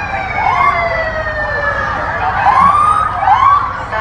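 Emergency vehicle sirens in a passing parade of fire engines. One long wail falls slowly in pitch through the first half. Three short rising-and-falling whoops sound over it.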